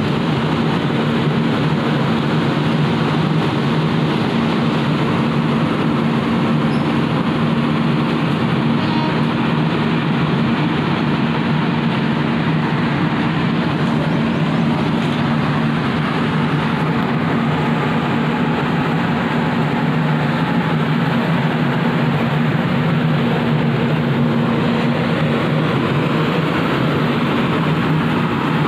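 Electric-hauled express passenger train running through the station below, a steady, unbroken rumble of coaches on the rails with a low, even hum under it.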